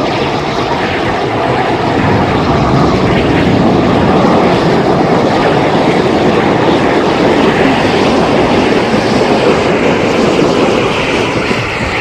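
Steam locomotive running at speed with a train: a loud, steady rush of exhaust and running gear.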